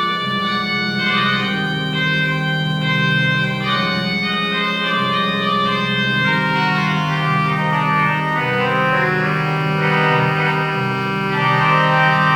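Organ music: sustained chords, held and changing from one to the next.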